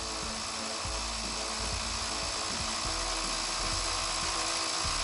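Portable 12 V electric tyre-inflator compressor running steadily, pumping air into a deflated, punctured motorcycle tyre.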